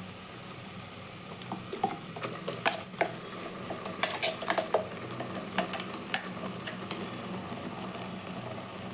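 Mutton and onions sizzling in an aluminium pressure cooker, with a run of sharp metallic clinks and scrapes as ground masala paste is scraped out of a metal container into the pot.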